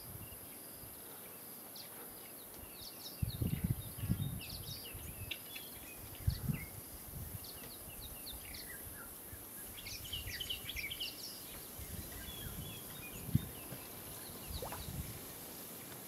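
Faint background of small birds chirping in scattered short calls, busiest around ten seconds in, over a steady high hiss. A few low bumps come about three to four seconds in, near six seconds, and once more near thirteen seconds.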